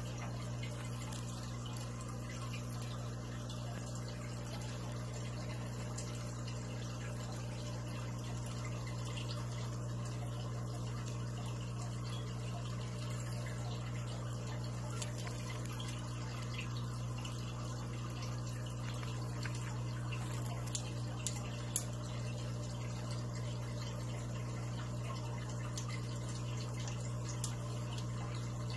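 Aquarium pump running with a steady low hum over a faint trickle of water, with a few small ticks or drips in the second half.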